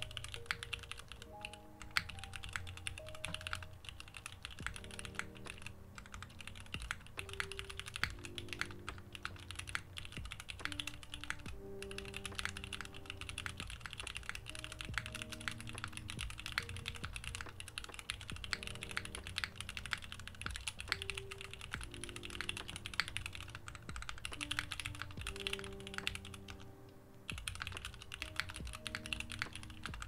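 Fast, continuous typing on a Moontower v2 60% mechanical keyboard. It has vintage Cherry MX Black linear switches on an aluminium plate, GMK keycaps, an o-ring mounted hotswap PCB and a polycarbonate case, giving a dense run of key clacks that pauses briefly near the end. Soft background music with slow held notes plays underneath.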